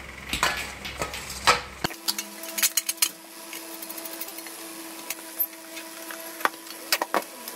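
Scattered clicks and knocks of metal parts being handled: a stainless steel bowl holding a rice-cooker heating element fitted into a tin box, and a nut underneath turned with pliers.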